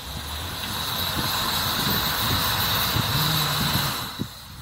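A 4x4 SUV's engine revving under load as it climbs a slope of deep, rutted snow. It builds over the first couple of seconds, holds, then drops off sharply about four seconds in.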